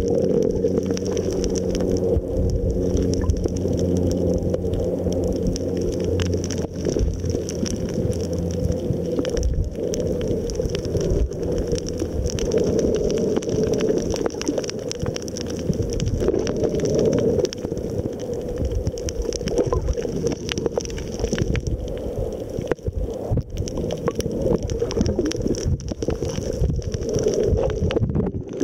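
Underwater noise picked up by a camera held just below the surface while snorkeling: low, muffled rumbling and sloshing of water. A steady droning hum runs through the first several seconds, then fades into the water noise.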